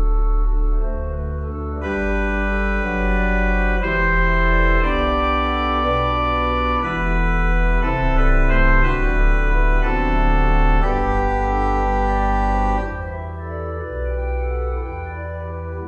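Organ playing slow, held chords over deep bass notes, changing every second or two; it grows softer near the end.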